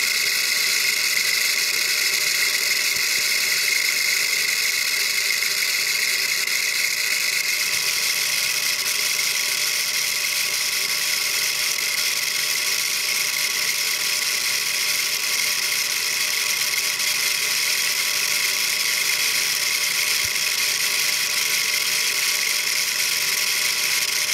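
3D-printed plastic bevel gears meshed on a metal lathe, running steadily at high speed: 1400 RPM on the big gear, 4200 RPM on the small pinion. A steady whir with a constant high whine, holding the same pitch throughout.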